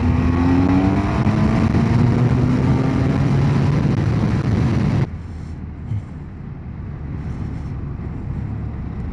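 BMW F800GT's 798cc parallel-twin engine accelerating hard in second gear, its note rising steadily over wind rush. About five seconds in the sound cuts abruptly to a quieter, steady engine and road noise.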